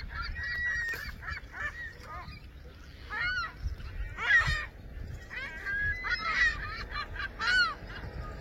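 A large flock of birds on a lake calling over one another: a continuous chorus of short overlapping calls, each rising and then falling in pitch, with a few louder calls standing out.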